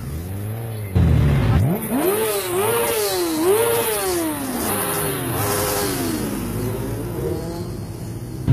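Several motorcycles riding past one after another, engines revving up and down in pitch, with a scooter passing near the end.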